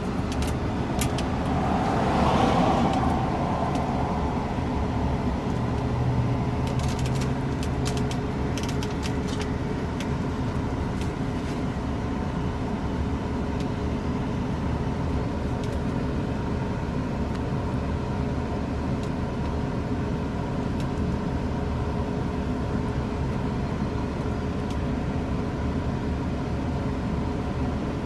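Steady mechanical hum like a vehicle running, with scattered faint clicks of small metal lock wafers being set into a car door lock cylinder, several in a cluster about eight to ten seconds in.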